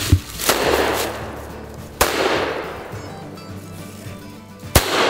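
Three gunshots fired at a squirrel, about two seconds apart, each echoing away. The squirrel is brought down.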